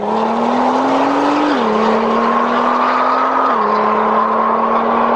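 Car engine pulling hard under acceleration, its pitch climbing slowly and dropping sharply at two upshifts, about a second and a half in and again about three and a half seconds in.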